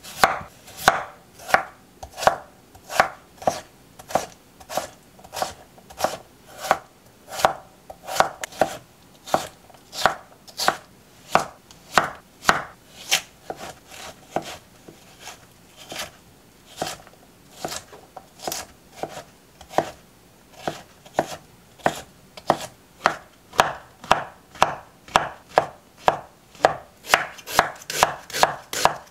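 Chef's knife chopping vegetables on a wooden cutting board as potato and zucchini are diced into cubes and then onion is chopped. A steady run of single strikes comes about two a second and quickens toward the end.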